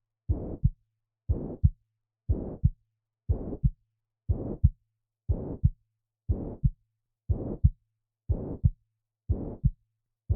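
Heart sounds of mitral regurgitation: a holosystolic murmur, noise that starts right with the first heart sound and runs without a gap up to the second, repeating about once a second for some ten beats.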